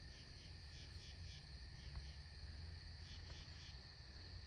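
Faint chorus of night insects such as crickets: a steady high trill with short chirps repeating several times a second, over a low background rumble.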